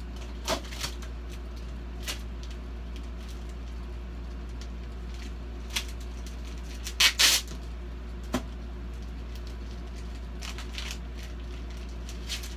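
Packaging being handled: plastic bags and paper rustled and crinkled with scattered short clicks, the loudest crackle about seven seconds in. A steady low hum runs underneath.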